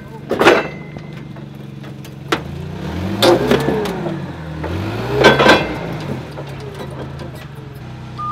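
Doosan forklift engine revving up and down twice as its forks lift a pickup truck bed, with loud bangs and crunches of sheet metal about half a second, three seconds and five seconds in.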